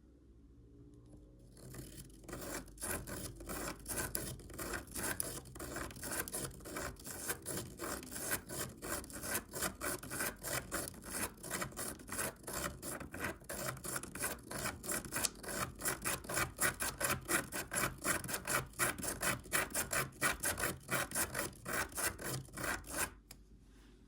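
Pen scratching across paper as it is driven round in a spirograph wheel: a quick, even rhythm of rubbing strokes that starts about two seconds in and stops shortly before the end.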